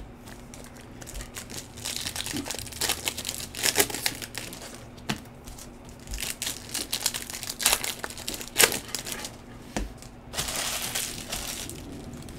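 Bowman Chrome trading-card pack wrappers crinkling as packs are torn open and the cards handled: irregular crackling with a few sharp clicks.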